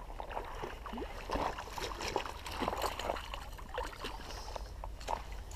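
A hooked pike splashing and thrashing at the surface as it is reeled in close to the bank: irregular small splashes and clicks.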